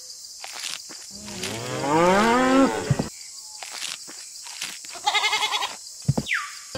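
A cow mooing once: one long call of about two seconds that rises and then falls. Short clicks are scattered around it, a brief rasping sound comes about five seconds in, and a quick falling whistle-like sweep comes near the end.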